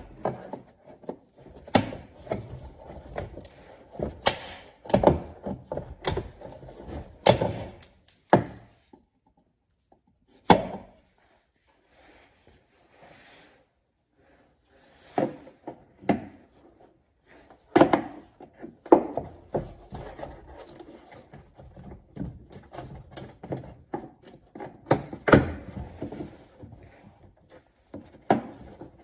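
Irregular plastic clicks, knocks and scraping as a flat-blade screwdriver pries push-pin clips out of a Lexus RX350's plastic engine undercover, with a pause of a few seconds about a third of the way in.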